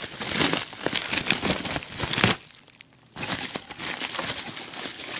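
Packaging being handled and unwrapped: crinkling and rustling in dense bursts, with a short lull about two and a half seconds in.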